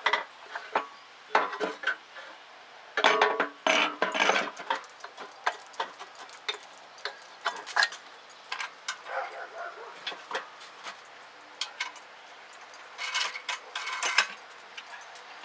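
Metal parts and hand tools clinking, knocking and scraping as the choke and carburetor area is put back together, with two longer spells of clattering.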